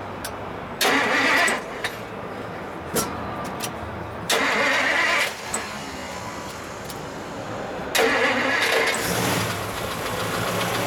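1956 Dodge Coronet Lancer's V8 being cranked by the starter: two short cranks of under a second each that don't catch, then a third about eight seconds in on which it fires and settles into a steady, quiet idle.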